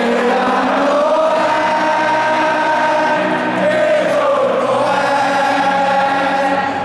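A football stadium crowd of tens of thousands of supporters singing a club song together in long, held notes.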